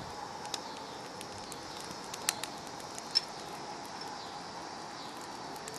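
Wood campfire crackling softly, with scattered small sharp pops over a steady outdoor background hiss.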